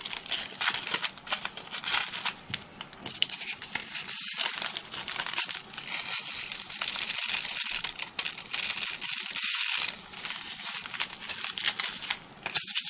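Thin plastic crinkling and rustling, continuous with small clicks, as sequins are tipped from a plastic bag into a clear plastic shaker pocket.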